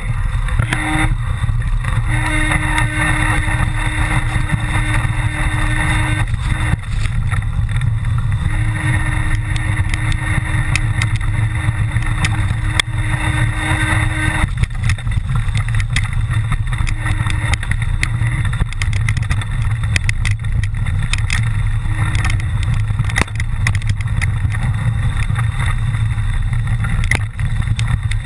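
Mountain bike riding down a rough trail: a steady low rumble with frequent rattles and clicks, and a pitched whine that comes on for several seconds at a time and stops.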